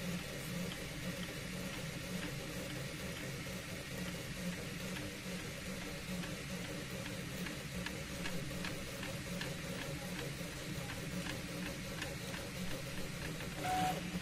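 Desktop 3D printer running: a steady hum from its fans and motors, with a rapid series of stepper-motor ticks from about five seconds in as the print head moves. A brief higher tone sounds near the end.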